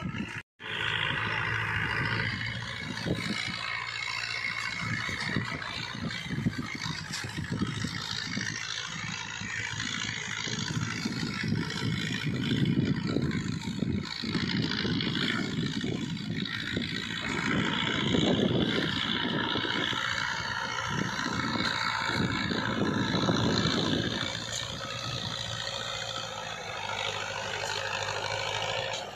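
New Holland Fiat 640 tractor's diesel engine running steadily under load as it pulls an 18-disc harrow through dry soil, swelling and fading as the tractor moves. There is a brief break in the sound about half a second in.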